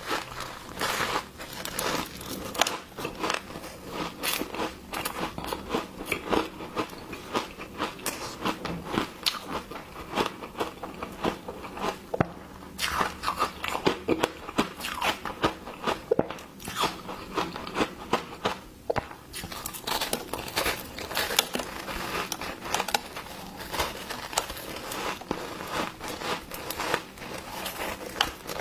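Ice being bitten and chewed: a dense, continuous run of crisp crunches and crackles as a block of powder-dipped ice is bitten off and crushed between the teeth.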